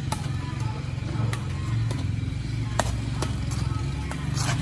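Badminton rackets striking a shuttlecock during a rally: several sharp hits, roughly a second apart, over a steady low rumble.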